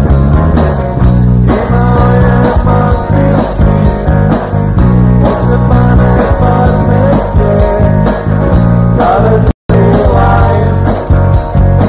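Rock song from a home-studio recording: electric guitars over drum machine and bass, with sung vocals. The sound cuts out completely for a split second about nine and a half seconds in.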